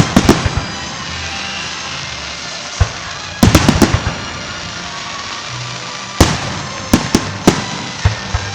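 Fireworks bursting: sharp bangs in clusters, a quick volley about three and a half seconds in, then single bangs spaced over the last few seconds, over a steady background rush.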